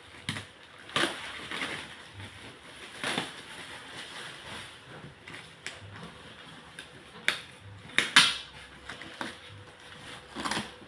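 Scissors snipping through the plastic wrap and tape on a cardboard box, with plastic crinkling between the cuts. Irregular sharp snips and crackles, loudest about eight seconds in.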